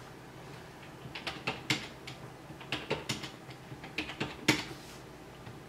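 Computer keyboard being typed on: about ten scattered key presses, the last one the loudest.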